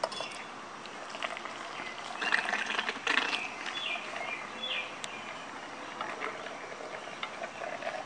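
Boiling water poured from a kettle into a plastic funnel and running down into a 1/2 inch PVC pipe, splashing and gurgling most strongly about two to three seconds in. Birds chirp a few short falling calls.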